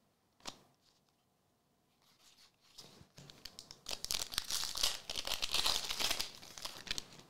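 Foil wrapper of a 2024 Elite football trading-card pack being torn open by hand, with crinkling and tearing that builds from about two seconds in, is busiest in the middle, and fades near the end. There is a light single tap about half a second in.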